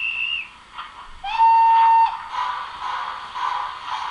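Sound-decoder steam whistle of an OO-gauge model Peppercorn A1 Pacific 'Tornado', played through the model's small speaker: the end of a short high toot, then about a second in a louder, lower whistle that bends up and holds for just under a second. After it a rhythmic chuffing of about two beats a second begins.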